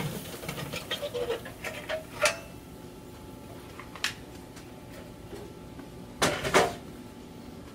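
Charcoal briquettes clinking and settling in a kettle grill's metal charcoal basket, just poured from a chimney starter, with a sharper clink about two seconds in. A single knock near the middle and a short clatter of metal knocks about six seconds in.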